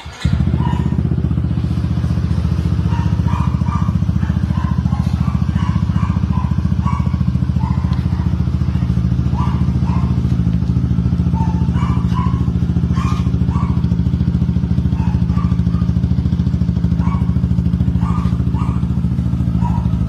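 Yamaha Mio Soul i 115 scooter's single-cylinder four-stroke engine idling steadily through an aftermarket Yoshimura R77 carbon slip-on exhaust, with no revving.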